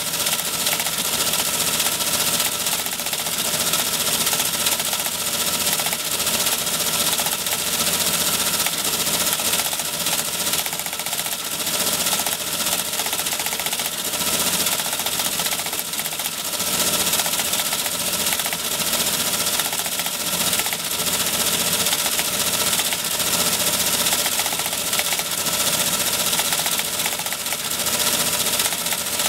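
Teletype Model 37 ASR printing incoming data at 150 baud: a continuous rapid clatter of characters being struck onto the paper, steady in level throughout.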